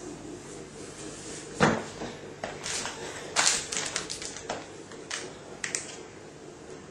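Heavy boots knocking and scuffing on a tiled floor while they are worn and handled, in a string of separate sharp knocks. The loudest comes about one and a half seconds in, and a quick cluster follows a couple of seconds later.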